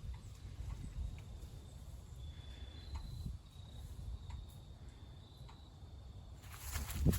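Quiet background with a low rumble and a thin, high insect trill that comes and goes. A louder rustling noise builds near the end.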